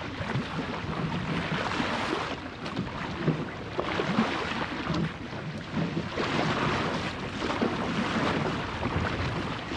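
Wind buffeting the microphone over water rushing and splashing along the hull of a plywood Goat Island Skiff sailing fast in a strong breeze, the rush swelling and easing every few seconds.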